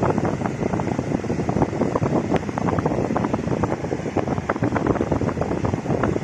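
Gusty wind buffeting the microphone, with waves breaking on a rocky shore underneath.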